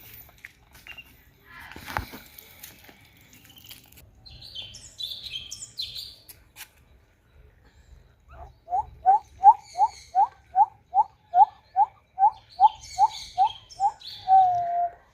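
A bird calling: a long run of short rising notes, about three a second, ending on one longer drawn-out note, with higher chirps a few seconds earlier. A single thump about two seconds in.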